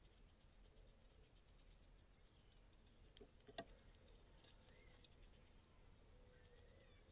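Near silence: faint garden background with a few faint bird chirps, and a single sharp click about halfway through.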